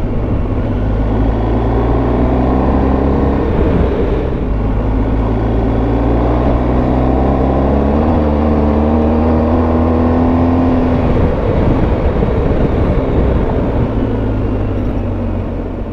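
Motorcycle engine pulling away and running along the road, its note rising and falling with throttle and gear changes, under a steady rush of wind noise.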